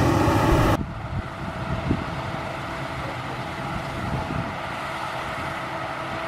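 Claas Lexion 660 combine harvester running close by with several steady tones, cut off abruptly under a second in. After that, a quieter low, uneven rumble of a Claas combine harvester working further off.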